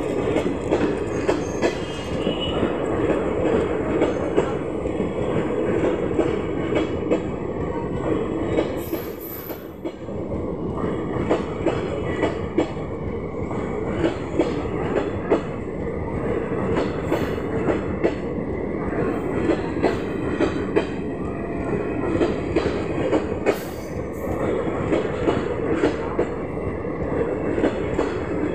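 Indian Railways passenger coaches rolling past close by: a steady rumble of steel wheels on the rails with a continual clatter of sharp clacks. The noise dips briefly twice.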